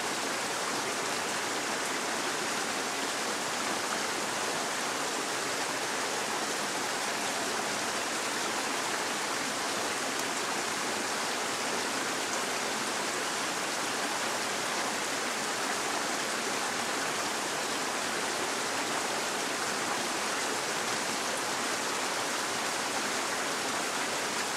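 Shallow forest stream running, a steady, even rush of flowing water.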